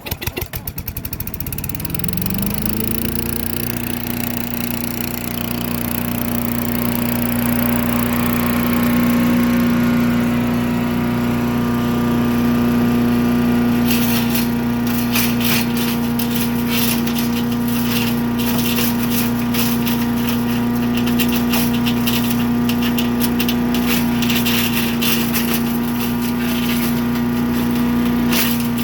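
Cub Cadet chipper shredder's gas engine catching after a pull-start on full choke, sputtering for a moment and then speeding up over about two seconds to a steady full-throttle run. About fourteen seconds in, an irregular clatter starts over the engine and keeps going.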